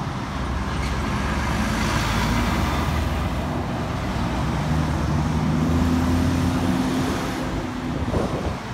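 Cab-over semi-trailer truck's diesel engine running steadily as it pulls a trailer through a roundabout close by, with tyre and traffic noise; the sound is loudest as the rig passes, and a van goes by near the end.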